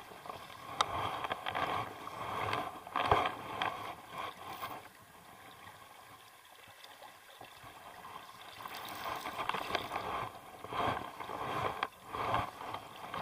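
River water splashing and swishing around a wader's legs as someone wades through a river, coming in irregular surges with a quieter stretch in the middle.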